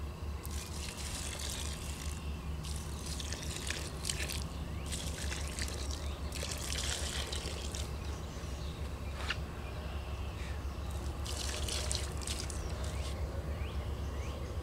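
Pond water poured onto a garden row, splashing and trickling into the soil in several separate pours, over a steady low hum.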